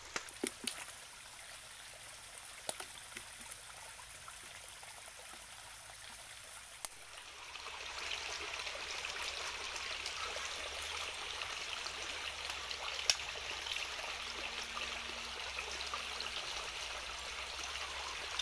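Shallow stream rushing over rocks, its sound growing louder about seven seconds in. A few sharp clicks come through it, the loudest about thirteen seconds in.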